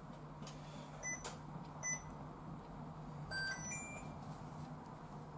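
Induction cooktop's control panel beeping as it is switched on and set: two single beeps under a second apart, then a quick run of three rising tones about three seconds in, over a steady low hum.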